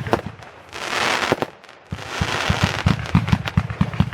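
Fireworks going off in a rapid string of sharp bangs and crackles, with a hissing rush about a second in and another about two seconds in.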